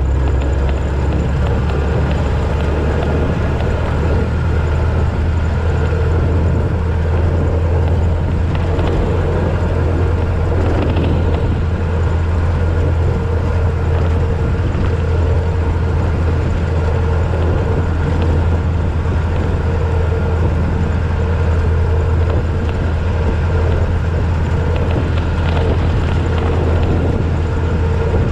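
1926 Ford Model T roadster driving steadily on a gravel road: its four-cylinder flathead engine running at an even speed under a steady low rumble of wind and tyres on gravel.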